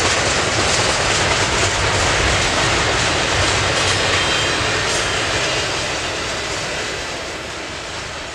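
Double-stack intermodal freight cars rolling past, a steady rumble and rattle of wheels on the rails that fades over the last few seconds as the end of the train pulls away.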